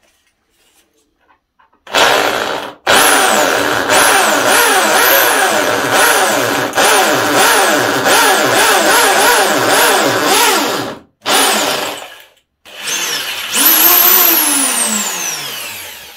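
Einhell TC-ID 720/1 E electric impact drill boring into concrete, starting about two seconds in. Its motor speed dips and recovers about twice a second as the bit bites, with a couple of brief stops and restarts, and it winds down with a falling whine near the end.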